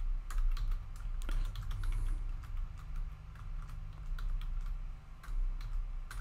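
Typing on a computer keyboard: quick, irregular key clicks as a line of code is typed.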